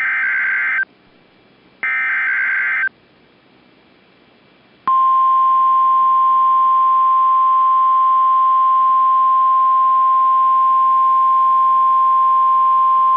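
Emergency Alert System SAME header data: two harsh, buzzy data bursts of about a second each, a second apart. About two seconds later the single steady 1050 Hz warning alarm tone of NOAA Weather Radio starts and holds, signalling that a warning message is about to be read.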